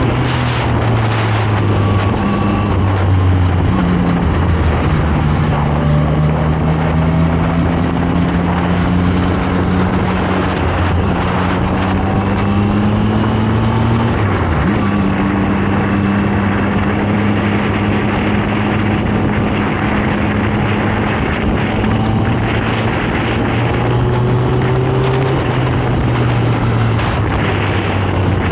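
Zontes 703RR sport motorcycle's three-cylinder engine running under way, its pitch climbing slowly, dropping sharply once about halfway through, then holding steady.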